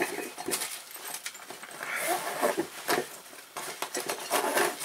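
A cast iron Dutch oven being set into its padded carry bag and the bag closed over it: fabric rustling and light handling knocks, with a brief squeak about two seconds in.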